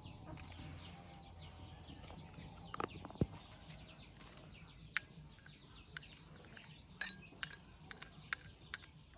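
Birds chirping and chickens clucking throughout, with a few sharp clicks scattered through it.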